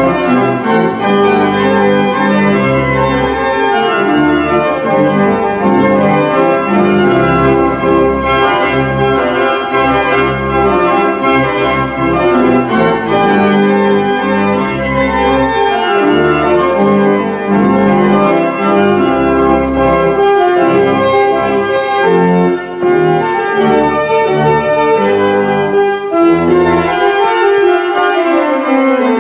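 Church organ playing: full sustained chords over low pedal notes, with a falling run of notes near the end.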